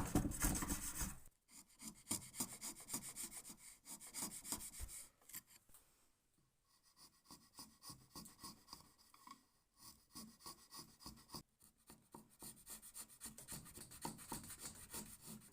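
Steel chisel paring and scraping wood in quick repeated strokes. The strokes are loudest for the first second or so, then lighter and broken by short pauses, building again toward the end.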